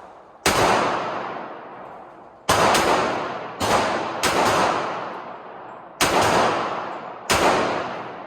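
Auto-Ordnance 1911 pistol in .45 ACP firing about eight shots at uneven intervals, some in quick pairs. Each shot rings out in a long echo.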